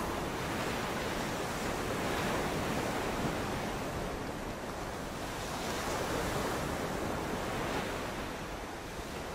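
Ocean surf washing on a beach: a steady rushing that slowly swells and eases.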